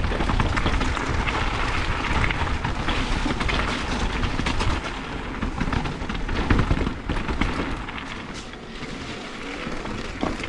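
Mountain bike descending a rocky trail: wind buffeting the on-bike camera's microphone, tyres crunching over gravel and stone, and the bike rattling and knocking over the bumps. The heavy rumble eases after about seven seconds as the trail turns to smoother dirt.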